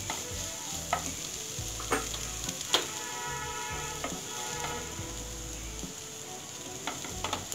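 Wooden spatula stirring and scraping fish scramble around a nonstick frying pan over a steady light sizzle, with a scrape or knock every second or so. Near the end come a few quick taps as the food is scooped into a glass bowl.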